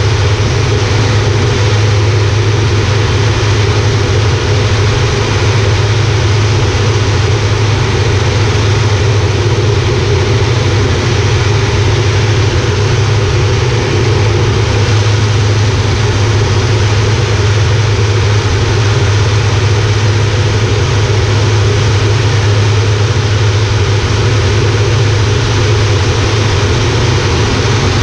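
Air Tractor 402B's Pratt & Whitney PT6A turboprop engine and propeller running steadily in flight, heard from inside the cockpit as a loud, unchanging low drone.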